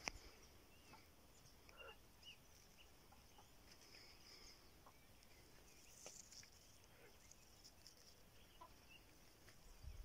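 Near silence, with faint, scattered short bird calls here and there.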